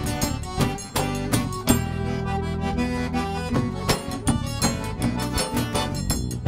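Forró music from a live band: accordion melody over a steady beat of drum and guitar strokes.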